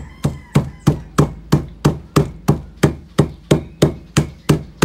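A glass pounding crushed sambong and malunggay leaves against a stainless steel bowl in a steady rhythm, about three strikes a second, each knock with a short metallic ring. The leaves are being mashed again and again to wring out the last of their juice.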